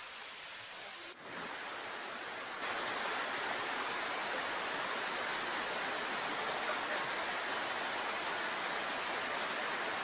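Waterfall rushing over rock: a steady hiss of falling water that dips briefly just after a second in, then steps louder and holds.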